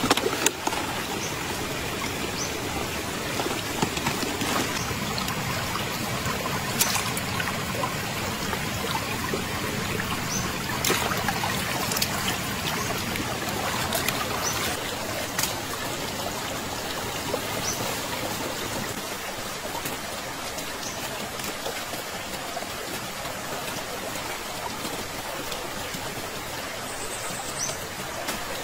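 River water flowing and trickling steadily, with a few short, sharp clicks in the first half and brief high chirps now and then.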